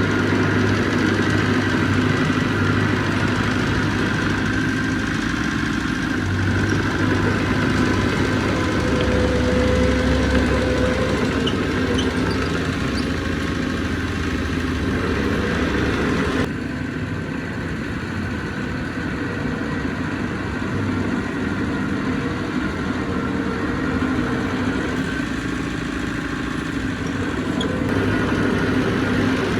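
Diesel engine of heavy earthmoving machinery running steadily, its pitch shifting slightly. About halfway through, the sound abruptly becomes a little quieter and duller.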